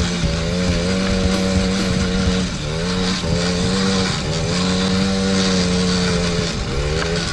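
Small 50cc two-stroke engine of a kids' ATV running at high revs, dropping off briefly twice as the throttle is eased and then picking back up.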